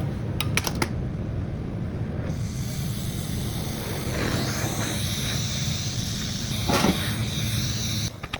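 A shop machine running steadily with a low rumble, a few sharp clicks at the start, a hiss with a high whine joining about two seconds in, then stopping suddenly near the end.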